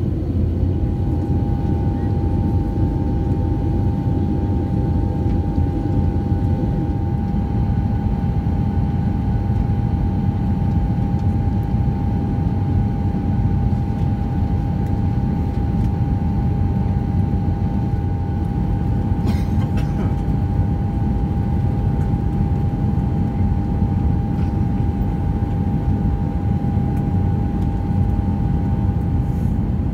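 Steady in-flight cabin noise of an Airbus A320 heard from a window seat beside the engine: a dense low rumble of engines and airflow with a steady whining tone on top. A couple of faint clicks near the end.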